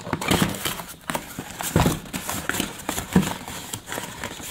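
A small cardboard box being handled and pried open by hand: irregular knocks, taps and scrapes of cardboard on cardboard, with a few louder knocks.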